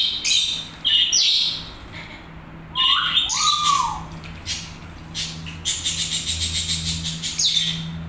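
Javan myna bathing in a shallow metal pan of water, splashing in several bursts, with a short call about three seconds in and a fast flutter of wet wings toward the end.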